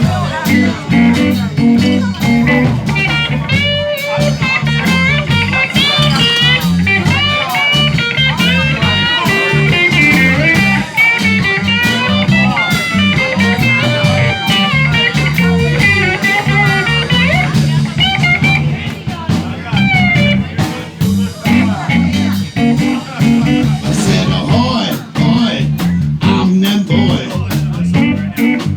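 Live blues band playing an instrumental break: a lead guitar solo with bent notes, most prominent from about 4 to 18 seconds in, over a walking bass line and drums.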